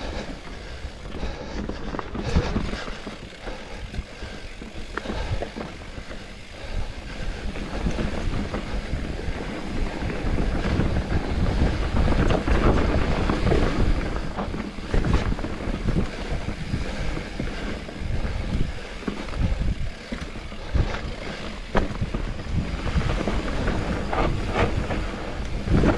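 Specialized Turbo Levo electric mountain bike riding down a rough dirt trail: tyres rolling over roots and rocks, with the bike rattling and knocking over each bump.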